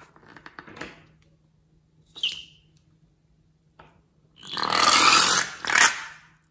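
A liquid-filled rubber balloon being squeezed: a few small clicks at first, a short rubbery squeak about two seconds in, then slime squirting out of the balloon's neck into a bowl of slime in a loud spurt of about a second and a half, followed by a second short spurt.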